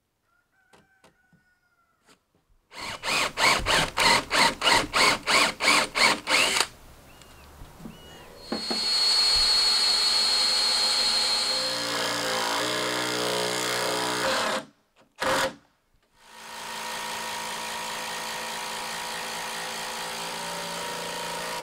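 Power drill running in two long spells, its motor pitch dropping under load during the first, with a short burst between them. Before it come about ten loud knocks, evenly spaced at some two and a half a second.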